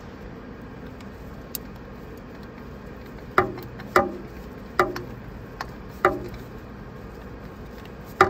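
Sharp metallic clanks, each with a short ring, from a ratchet wrench worked against the fan hub and pulley of a DAF CF85 truck engine: five loud ones at uneven spacing over about five seconds, with a couple of lighter ticks between them. A steady workshop hum lies underneath.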